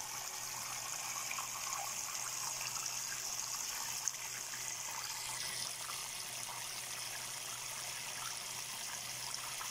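Water trickling and splashing steadily down a small homemade waterfall fountain, with one brief click about four seconds in.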